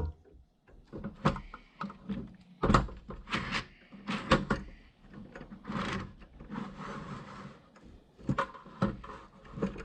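Handling noise from a Milwaukee 100 ft tape measure reel: a run of irregular plastic clicks and knocks, with a stretch of scraping about six seconds in.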